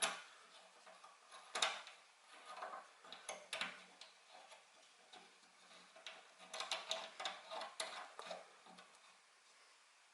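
Handling noise of small hard parts: irregular light clicks and taps, loudest about a second and a half in, with a busy cluster of clicks between about six and eight seconds in.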